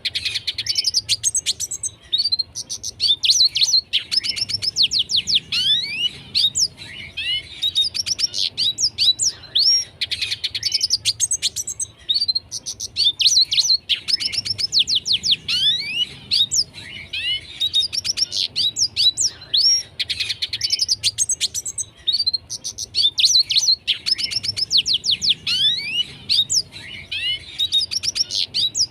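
Red siskin singing continuously: a busy twittering song of rapid trills, chirps and sweeping whistles. The same run of phrases comes round about every ten seconds.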